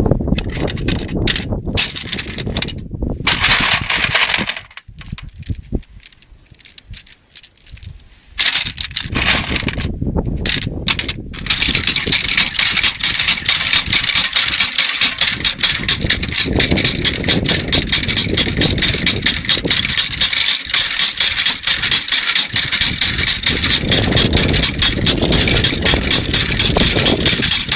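Rapid mechanical clicking and rattling, with a quieter, sparser stretch about a quarter of the way in, then a steady fast clatter for the rest.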